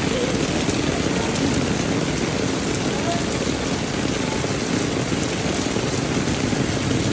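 Heavy rain pouring onto a wet paved street, a steady even hiss.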